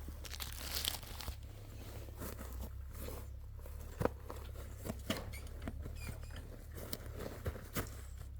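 Muffled crackling with scattered clicks and knocks over a steady low rumble, picked up by a camera lying face down in the dirt; the sharpest knock comes about four seconds in.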